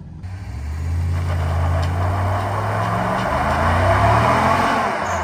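Full-size pickup truck doing a burnout: the engine is held at high revs while the rear tyre spins on pavement, a steady tyre hiss over the engine note. About three and a half seconds in the revs climb, and the sound cuts off abruptly at the end.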